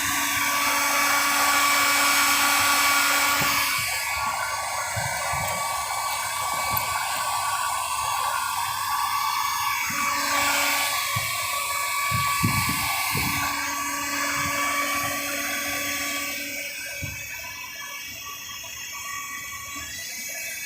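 Power tool running steadily with a high whine over a hiss, used on a conveyor belt repair; a few dull knocks come about twelve seconds in, and it grows quieter near the end.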